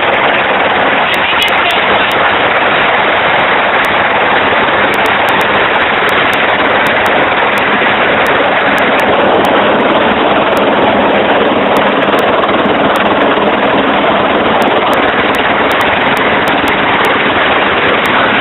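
Helicopter engine and rotor noise, loud and steady, with a rapid chop.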